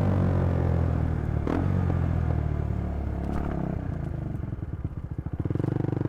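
Motorcycle engine running steadily, with a sharp click about a second and a half in. About four seconds in, the revs drop and the engine settles into slow, separate firing pulses.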